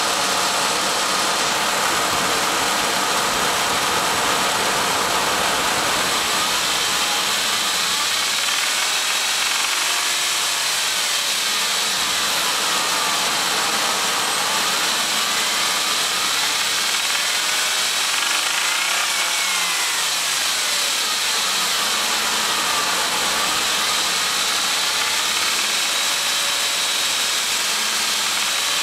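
Chrysler 2.7-litre V6 (EER) engine idling, then revved up and let back down several times. A knock from the cylinder head comes in above about 2000 rpm and is stronger while the revs climb, the fault the owner is recording.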